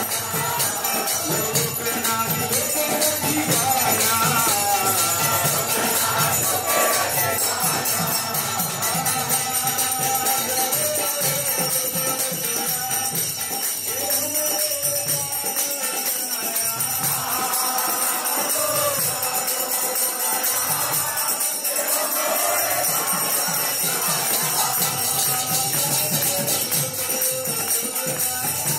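Devotional kirtan: a group singing a chant, with hand cymbals (kartals) clashing steadily in a fast, even beat.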